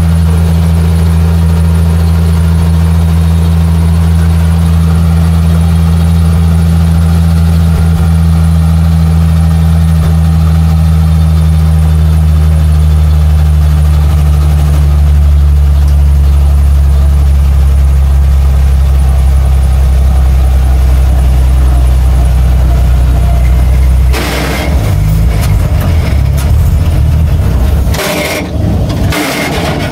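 1948 Bedford truck's six-cylinder engine running steadily under way, heard from inside the cab as a loud low drone. Near the end the drone turns uneven, broken by rattles and knocks.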